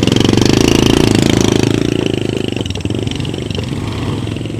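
Motorbike engine running under load as it carries bags of paddy, loudest in the first couple of seconds and then fading as it moves off.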